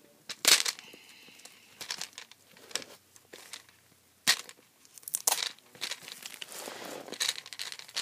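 Plastic packaging crinkling, with several sharp clicks and snaps of the hard plastic toy gumball-machine dispenser being handled and pried open.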